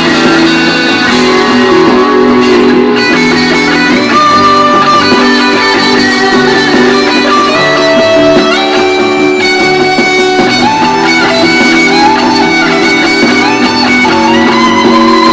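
Fender American Standard Stratocaster HSS electric guitar played steadily, with long held notes that bend and slide in pitch over lower sustained notes.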